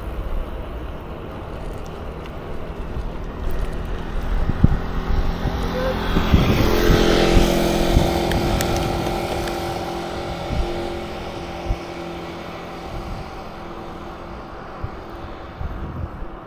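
A motor vehicle passing by: its engine sound builds over a few seconds, is loudest about seven seconds in, then slowly fades away.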